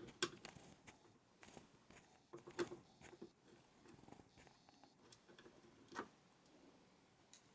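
Faint, scattered clicks and taps of small computer parts being handled and fitted during a PC build, about half a dozen separate ticks over a near-silent background.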